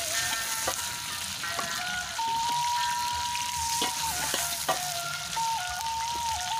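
Chopped vegetables sizzling in a wok as a metal spatula stirs them, with a few sharp knocks of the spatula against the pan. A simple melody of long held notes plays over it.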